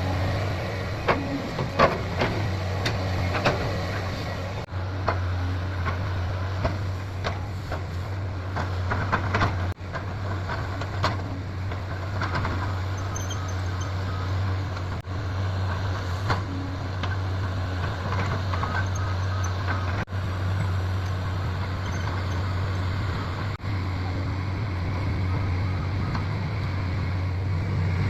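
Excavator engine running steadily with a low drone, with sharp metallic clanks and knocks in the first few seconds.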